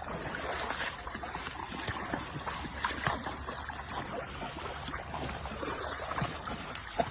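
Footsteps wading through shallow river water, a continuous run of small splashes and sloshes.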